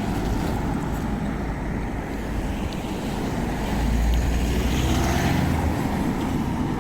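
Road traffic going by at a roundabout, with a low rumble of wind on the microphone; one vehicle passes loudest about four to five seconds in.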